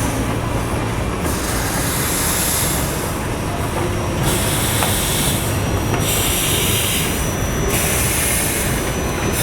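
Peckett 0-4-0 steam locomotive moving off with its train, a steady low rumble under a high hiss that comes and goes about every second and a half. A faint thin high tone joins in for the second half.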